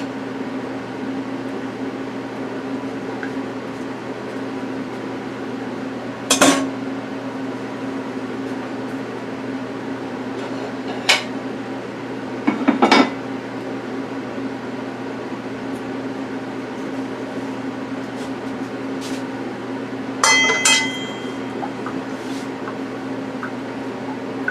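Dishes and cookware clattering as they are put into a sink: a few separate knocks and clanks, with a ringing clink near the end, over a steady low hum.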